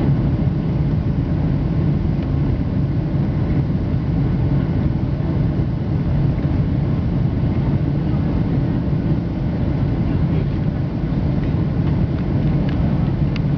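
Boeing 737-800 cabin noise: a steady low rumble of the CFM56-7B engines and airflow, heard from inside the cabin during the landing.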